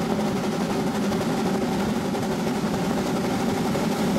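Geared Shay steam locomotive working steadily, heard close from the train: a rapid, even, unbroken churn of exhaust and running gear.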